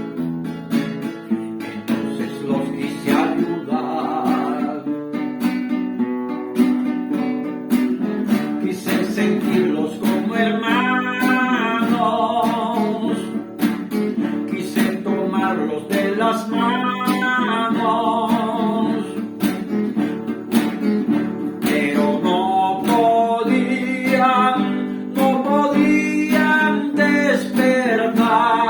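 Acoustic guitar music, strummed and picked, with a wavering melody line rising and falling over it.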